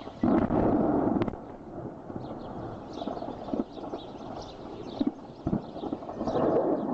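Explosion blast: a sudden loud, deep rumble breaks in just after the start and lasts about a second, then gives way to lower rumbling with several scattered thuds. Birds chirp faintly throughout.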